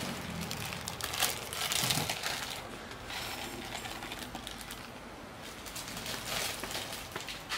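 Scattered light clicks and clinks of utensils and containers against ceramic bowls, with a plastic packet crinkling, as bowls of noodle soup are seasoned.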